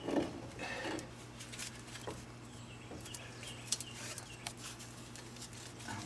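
A plastic zip tie being fed through and pulled tight around a suspension control arm, heard as scattered faint clicks. A chicken clucks briefly in the first second.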